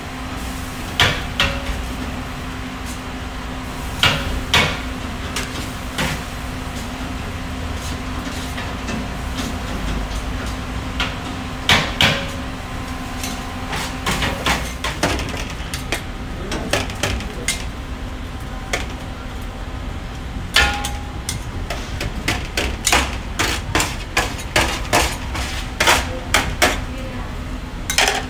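Shawarma knife and flat scraper clinking and scraping against a vertical rotisserie's steel spit and stainless-steel drip tray as meat is carved off. Irregular sharp metallic knocks, coming quicker near the end, over a steady low hum.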